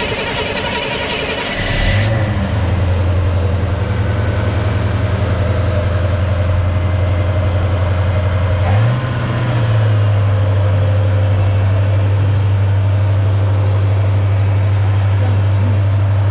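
1956 Chevy truck engine firing up about two seconds in and settling into a steady idle, with a brief rise in engine speed about halfway before it settles back to an even idle.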